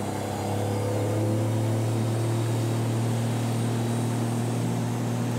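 Outboard motor running a bass boat at speed, its pitch climbing over the first couple of seconds and then holding steady, with water rushing past the hull.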